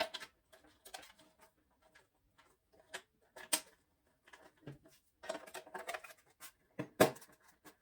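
Light plastic clicks, taps and rustles of hand-handled parts: a power cable and a robot vacuum's charging dock being set down and moved about. The strongest taps come about three and a half seconds in, and in a cluster from about five to seven seconds in.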